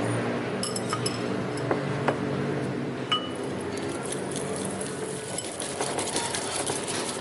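Light clinks and taps of glassware, with scattered small crackling clicks and a few short ringing pings.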